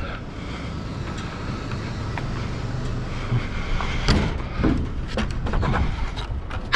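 Wooden pallets being handled and loaded: several knocks and clatters from about four seconds in, and a loud bang at the very end, over a steady low rumble.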